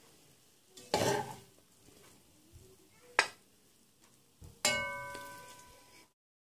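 A metal spoon scraping and clinking against a nonstick cooking pot and a ceramic plate as food is served out: a scraping clatter about a second in, a sharp clink about three seconds in, and a ringing clink near five seconds.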